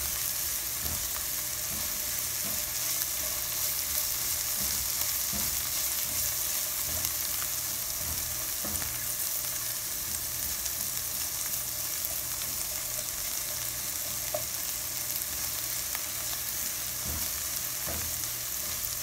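Diced onion, garlic and green chiles sizzling in hot oil in a frying pan over medium heat: a steady hiss, with the light scrape and tap of a spatula stirring them.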